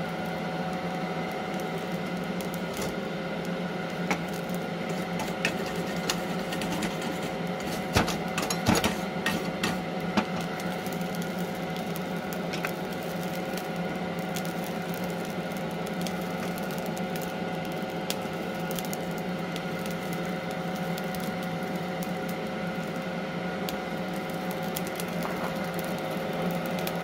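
Steady hum of a forge running, its blower or burner holding one pitch throughout. Scattered clicks and scrapes of metal being handled at the forge sound over it, the loudest about eight to ten seconds in.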